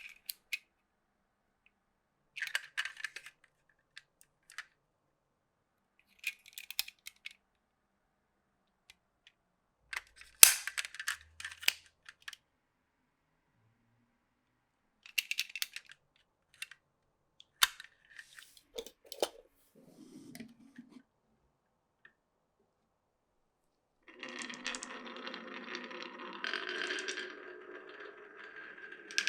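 Glass marbles clicking and clattering as they drop and knock along a wooden marble-run course, in separate short bursts. In the last few seconds a continuous rolling sound takes over.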